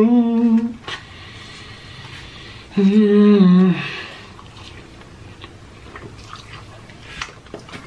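A man hums a closed-mouth "mmm" of enjoyment twice while eating, once at the start and again about three seconds in, each hum steady and under a second long. Between them come quiet wet chewing and mouth clicks.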